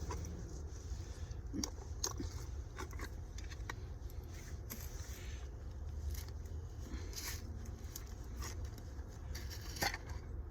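Scattered small clicks and scrapes of gear being handled, over a steady low rumble.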